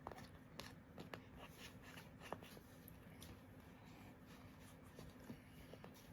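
Near silence with faint, scattered small clicks and ticks: glitter slime being handled and rolled by hand into a worm shape.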